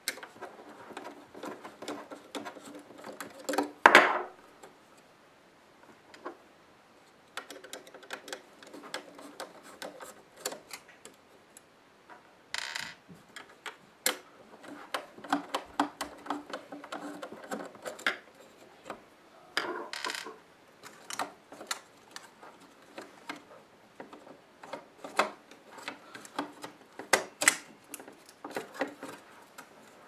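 Hands and a screwdriver working on an opened desktop computer power supply to free its cooling fan: irregular metal clicks, taps and light scraping on the sheet-metal case, with one louder knock about four seconds in.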